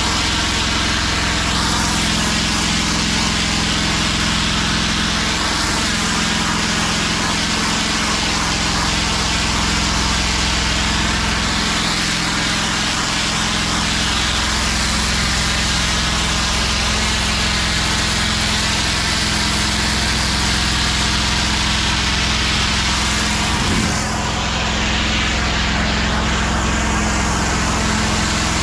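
Gas engine of a pressure washer running steadily under load, with the hiss of high-pressure water spraying.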